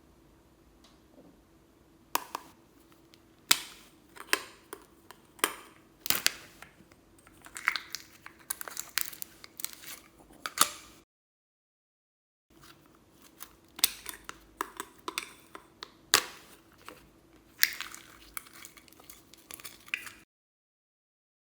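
Slime being pressed and worked by hand, giving irregular sharp pops and crackles, some in quick clusters, as trapped air bursts. The sound drops to dead silence twice for a second or so.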